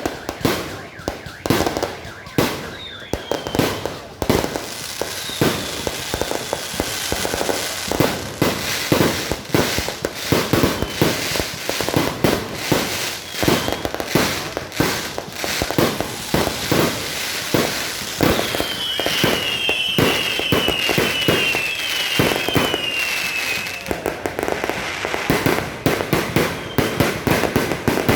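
Fireworks going off in rapid succession: many bangs with crackling between them, and whistles falling in pitch, including a quick run of several whistles past the middle.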